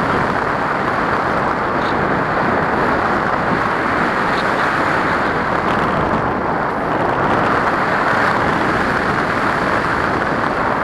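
Steady rush of wind over the microphone of a camera riding on a radio-controlled glider in flight, with no motor pitch heard. An occasional faint tick.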